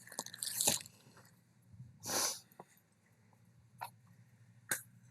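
Brief rustles and light knocks of things being handled and moved by hand: a short scrape or rustle near the start, a longer rustle about two seconds in, and two small clicks near the end.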